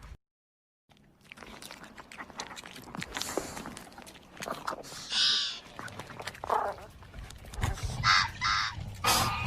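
Invented dinosaur vocalisations for Austroraptor. After a brief silence comes a run of short, high-pitched, bird-like calls, including a close pair near the end, over a low rumble that grows in the second half.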